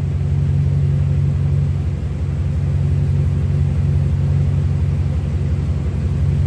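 2017 Ram 1500 pickup's engine idling steadily, a loud, even low rumble.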